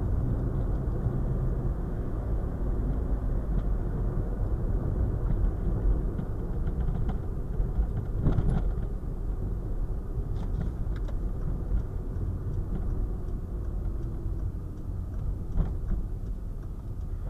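Steady low rumble of a moving car's engine and tyres on the road, heard from inside the cabin. A few short knocks and rattles come through, the loudest about eight seconds in.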